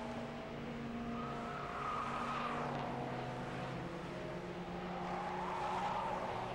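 Racing car engines running at speed as a Ford Sierra RS500 Cosworth, a turbocharged 2.0-litre four-cylinder touring car, takes a bend. A higher-pitched whine swells about two seconds in and again near the end.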